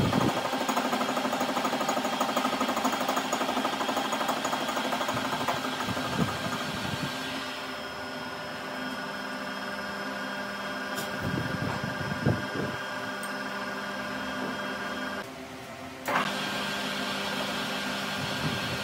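Small metal lathe running, its cutter machining teeth into a steel pipe wrench jaw: a steady motor hum with a hissing cutting noise that falls away about seven seconds in, a few light knocks, and a brief drop in the hum near the end.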